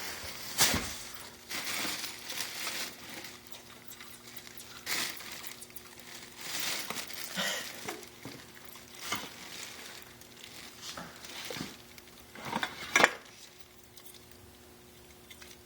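Irregular scratching, rustling and light rattling, the sound of a small trapped animal moving about inside a container. The loudest burst comes near the end, after which it goes quiet.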